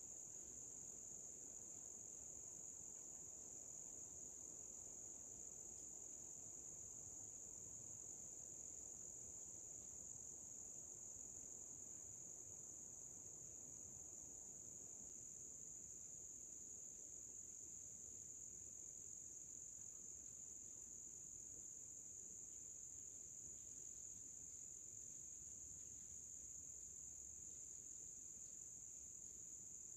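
Faint, steady, high-pitched chorus of crickets, one unbroken drone.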